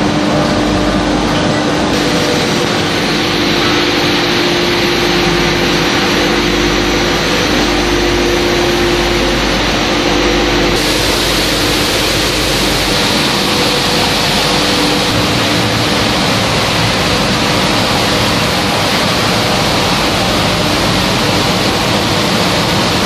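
Siapro HSC 500x1600 hanger-type through-feed shot blasting machine running: a loud, steady noise of its blast turbines throwing abrasive at the hung parts, with a steady hum under it.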